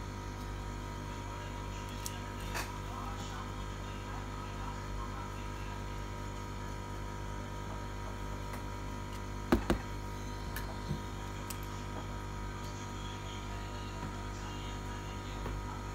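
Light clicks and knocks from a tablet's display panel being handled and set onto its frame, the loudest a quick double knock about halfway through, over a steady electrical hum.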